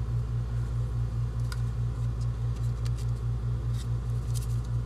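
A steady low mechanical hum that throbs several times a second, with a few faint light clicks as a plastic measuring spoon and salt shaker are handled.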